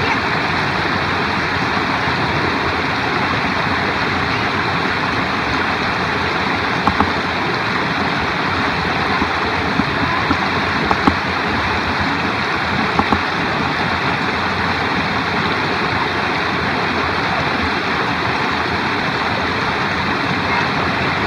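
Shallow mountain stream rushing and splashing over boulders and small cascades, a steady loud water noise, with a few brief knocks in the middle.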